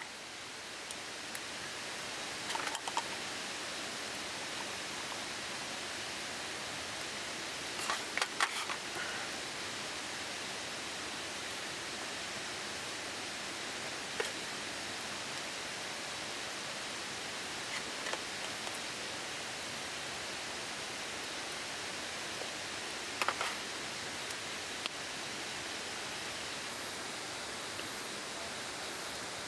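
Steady, even rushing noise with a few small clicks and knocks: about three seconds in, twice around eight seconds, and once more about 23 seconds in.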